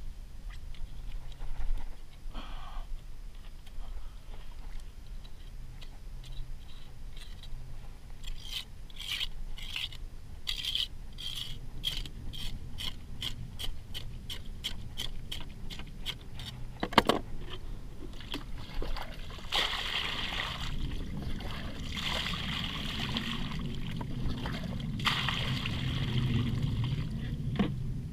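Knife sawing and cutting through blacktip shark skin and flesh on a plastic kayak deck: a run of short strokes, about three a second, then a single sharp knock a little past halfway, then longer, slower cutting strokes near the end.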